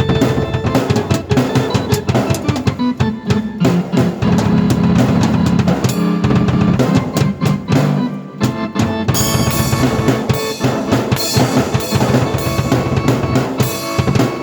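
Drum kit and keyboard played together in an up-tempo piece, with busy snare and bass drum hits and rolls over held keyboard chords. The playing stops at the very end, leaving a chord fading out.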